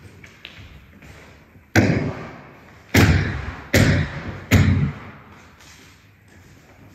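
Four heavy stamps on a wooden sports-hall floor, each echoing in the hall: one alone, then three in quick succession about a second later, the sharp foot stamps of a tai chi form.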